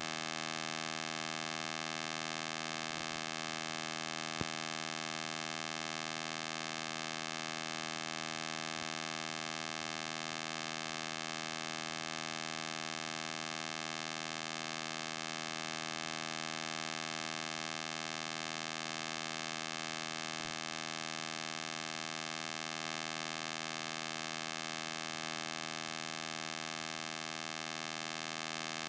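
A steady electrical hum with many overtones that does not change, with a few faint clicks, the clearest about four seconds in.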